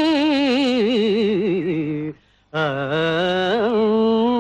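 A single voice singing a Carnatic-style devotional chant, with held notes and quick wavering ornaments. It breaks for a breath about two seconds in, then comes back on a low note that rises and holds.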